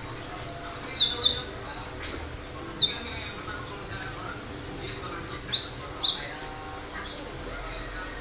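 Cinereous tit (gelatik batu) singing: three short phrases of sharp, high notes that sweep quickly in pitch. The phrases come about half a second in, near three seconds in, and between five and six seconds in, with quieter gaps between them.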